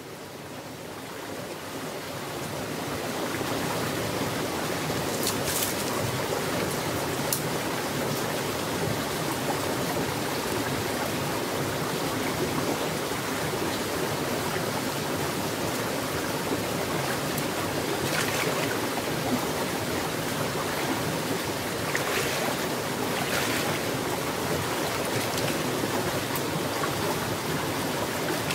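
Shallow creek water rushing steadily over a small rocky cascade, fading in over the first few seconds. A few brief splashes from wading in the water stand out now and then, more toward the end.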